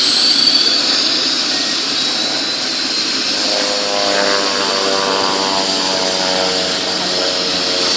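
Bell 206 JetRanger helicopter starting up, its Allison 250 turboshaft running with the main rotor turning: a steady high-pitched turbine whine over a loud rushing noise. About halfway in, a lower droning hum with several tones joins and dips slightly in pitch.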